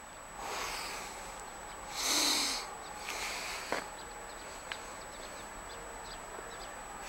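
Outdoor ambience with a few short, harsh rasping sounds, the loudest about two seconds in, followed by a click and then faint bird chirps.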